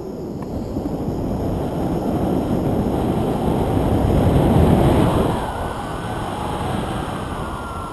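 Wind rushing and buffeting over an action camera's microphone in tandem paragliding flight. It builds to its loudest about four to five seconds in, then eases off.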